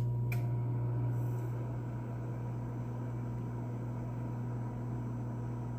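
Microwave oven running with a steady low hum, with a brief click just after the start.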